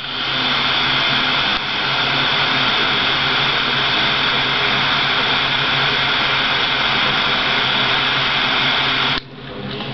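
Butane jet lighter burning with a steady hiss as its flame heats solder on a metal connector. The flame cuts off suddenly about nine seconds in.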